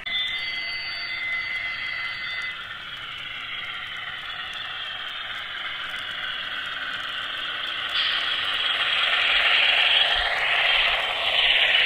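Onboard Paragon 2 sound decoder of a Broadway Limited HO scale Baldwin Centipede diesel model, playing its engine sound through a small speaker in the locomotive while it runs, with its wheels rolling on the rails. The sound is thin and tinny; a steady high tone sounds for the first couple of seconds, and it grows louder about eight seconds in as the model passes close.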